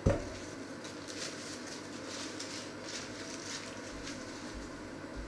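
A single sharp knock against a stainless steel mixing bowl as butter goes into it, ringing briefly, followed by faint rustles and clicks.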